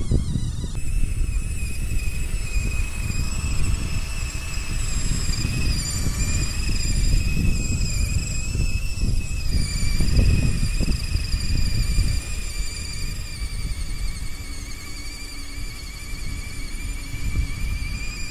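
Homemade RC tractor's small electric motor and WPL gearbox whining as it drives over sand. The whine is high, with several overtones, and wavers a little in pitch with the throttle, over an uneven low rumble.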